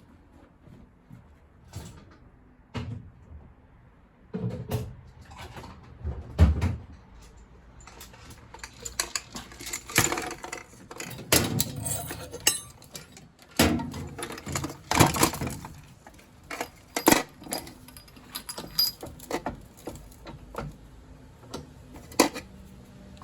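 Scrap copper and brass boiler parts and tools clinking and clattering as they are handled, with irregular sharp metallic knocks, some of them ringing briefly.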